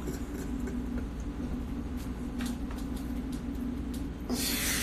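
A man laughing without words over a steady low hum, ending in a short breathy, wheezing rush of breath near the end.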